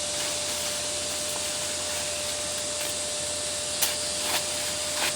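Steady hiss with a faint steady tone under it, and a few light clicks in the second half.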